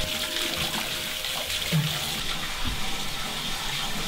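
Bathroom sink tap running steadily, the water splashing over hands being washed under it.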